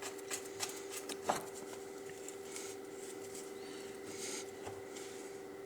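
Small clicks of a screwdriver tightening the screws that hold an angle grinder's guard, with a sharper click about a second and a half in, then only a faint steady hum.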